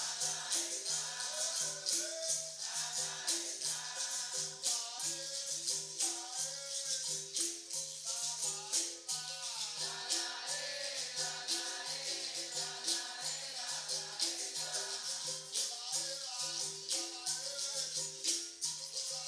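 Capoeira roda music: berimbaus playing a repeating pattern of low notes, with a caxixi shaker and pandeiro jingling on the beat and voices singing over them.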